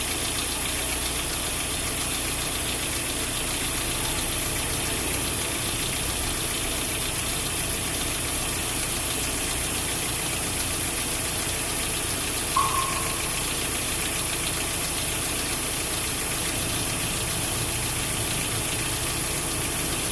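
2013 Hyundai Elantra 1.8 four-cylinder engine idling steadily after start-up, with the repeated 'glik glik' clicking noise it makes at idle. A brief, loud high chirp sounds once a little past halfway.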